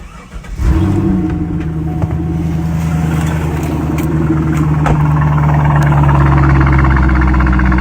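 A 2000 Corvette's 5.7-litre V8 breathing through a Borla Atak axle-back on the stock H-pipe comes in suddenly about half a second in, then settles into a steady idle.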